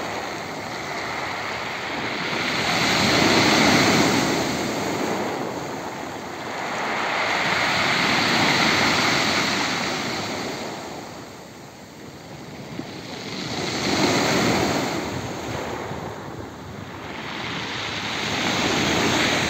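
Black Sea surf breaking and washing up a pebble beach, the rush of water swelling and fading about every five seconds.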